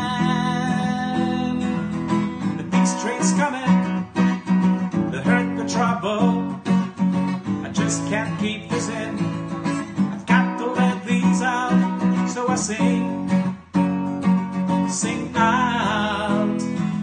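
Acoustic guitar strummed in a steady rhythm, an instrumental passage with no lyrics sung.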